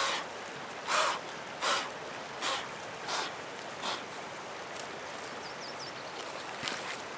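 A person blowing short, hard puffs of breath, six in a row about 0.7 s apart, each weaker than the last. A small bird chirps faintly a little later, and a few light clicks follow near the end.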